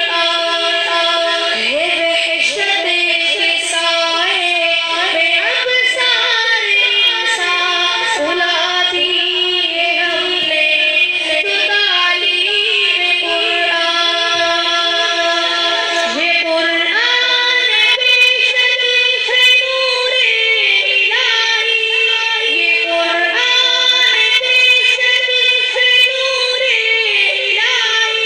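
Urdu nasheed sung in a high voice, the melody gliding between long held notes over steady sustained backing tones.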